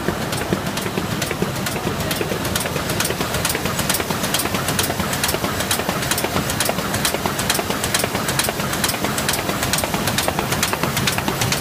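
DLG FMQF automatic flute laminator running at production speed, its sheet feed and rollers making a steady mechanical clatter with a rapid, even clicking of several clicks a second.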